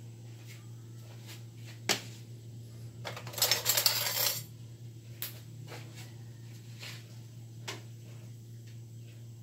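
Kitchen items being handled on a counter: a sharp knock about two seconds in, then a loud rattling clatter lasting about a second and a half as a yellow plastic tray is moved and set down, followed by a few light taps. A steady low hum runs underneath.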